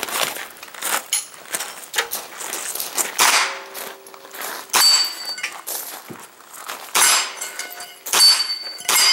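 Pistol-caliber carbine shots fired one at a time, about a second or more apart, each followed by steel targets ringing.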